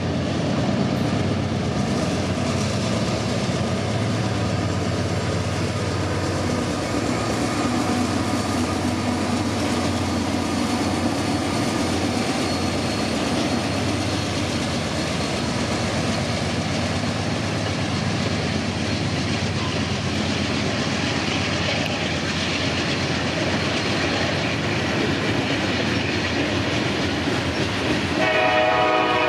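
Norfolk Southern diesel locomotives hauling a slow, loaded coal train past, the engines running with a steady low drone over the noise of wheels on the rails. Near the end a locomotive's multi-tone air horn starts blowing and grows louder.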